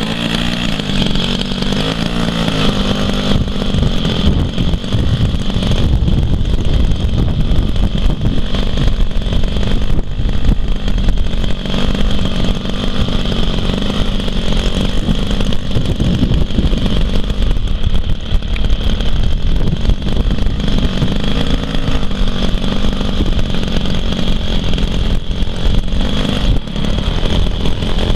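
Twin-cylinder DLE-40 two-stroke petrol engine of a large model aeroplane running at low throttle as it taxis, its pitch rising and falling with small throttle changes near the start and again in the second half. A heavy low rumble lies beneath it.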